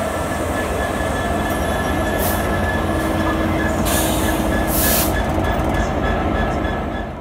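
Freightliner Class 66 diesel locomotive passing close by, its two-stroke V12 engine and wheels making a steady heavy rumble with a thin steady whine over it. Short bursts of high hiss come about two seconds in and twice around four to five seconds in. The sound cuts off abruptly at the end.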